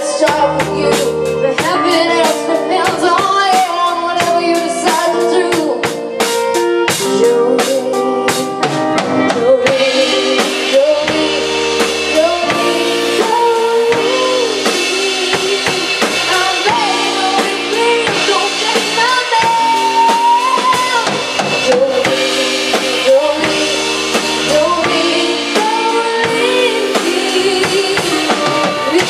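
Live rock band playing: a drum kit with busy snare, rim and bass-drum hits, electric guitar and bass, and a woman singing lead. About ten seconds in the cymbals get louder and wash over the rest.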